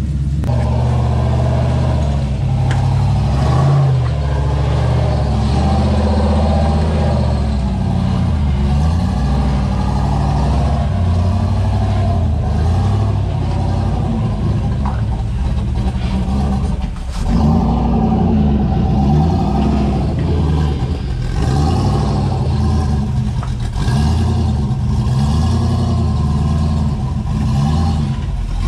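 Rock-crawling buggy engine revving up and down in repeated bursts as it works over boulders.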